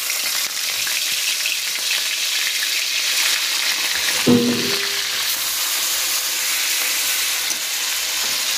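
Onion paste sizzling steadily as it fries in hot oil in a wok. A short pitched sound comes about four seconds in.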